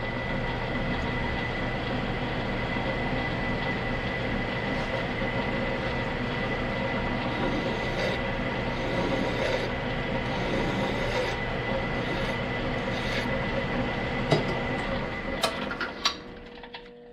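Metal lathe running steadily while facing off the end of a steel shaft, with a few sharp metallic clicks near the end as it spins down and stops.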